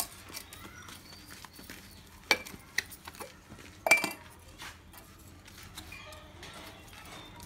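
Steel utensils clanking: a few sharp metallic knocks with a short ring, the loudest pair about four seconds in.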